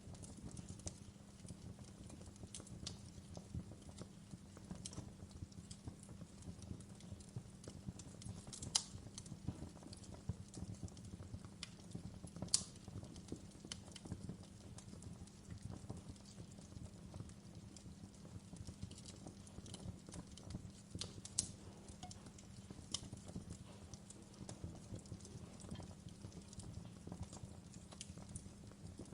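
Wood fire crackling in a fireplace: faint, irregular small pops and snaps over a low steady rumble, with a few sharper cracks.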